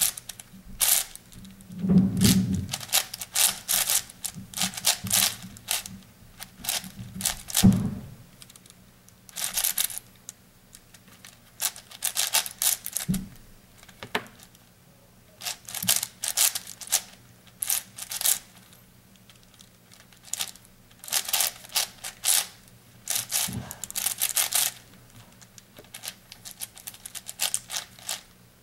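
8x8 puzzle cube being turned by hand: bursts of rapid plastic clicking and clacking as its layers turn, with short pauses between bursts. A couple of low thumps early on stand out beneath the clicks, about two seconds in and again near eight seconds.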